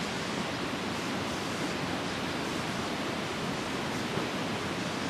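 Steady, even rushing noise with no distinct events, an unchanging outdoor background hiss.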